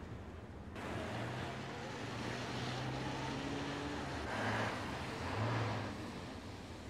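City street traffic: a steady rush of passing cars with a low engine hum. It steps up about a second in and swells louder twice past the middle.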